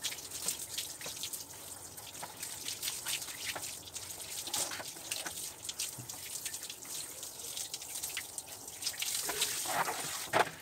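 Handheld shower head spraying water over a dog's wet coat, with steady hiss and water splashing and dripping onto the tiled floor; the spray gets a little louder near the end.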